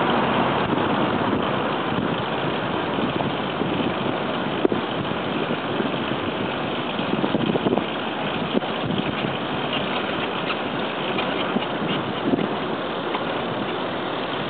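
Steady wind rush on the microphone and road noise from riding a bicycle along a city bike lane, with a few light knocks and rattles from the bike.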